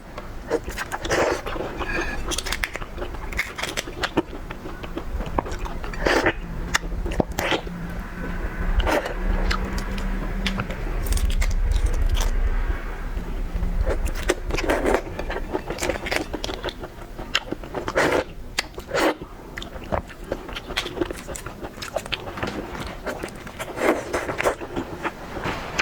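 Close-miked eating of crayfish and shrimp: irregular biting, chewing and crunching, with sharp clicks and scrapes as shells are cracked and peeled. A low rumble rises in the middle and fades again.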